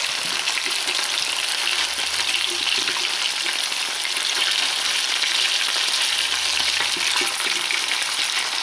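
Pieces of burbot frying in hot oil in a thick-walled pan: a steady, dense sizzle and crackle of the oil around the fish.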